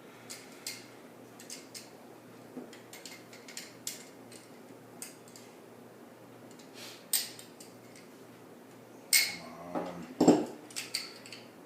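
Small metal pipe fittings for a propane burner being handled and screwed together by hand: scattered light clicks and clinks, with a louder cluster of knocks about nine to ten seconds in.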